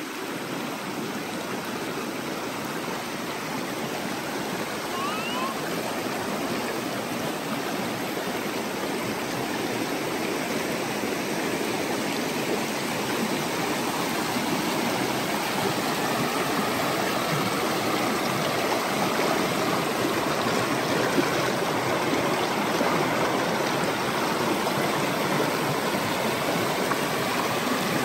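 A creek running high and muddy, rushing over rocks in rapids: a steady noise of churning white water that grows a little louder over the first half.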